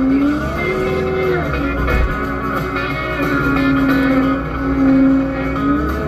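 Guitar-led country music playing over a Cat 299 compact track loader's engine running steadily, its pitch rising and falling a little as the machine works.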